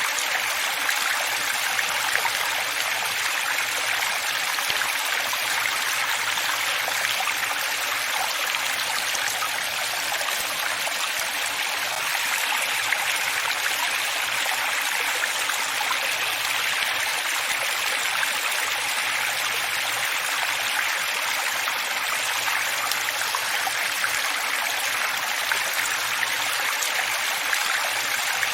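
Running water flowing steadily, an even rushing hiss that stays at one level throughout, with little low rumble.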